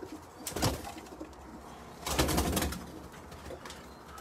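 Birmingham Roller pigeons cooing in a loft, with two short rustling bursts, about half a second in and, louder, around two seconds in.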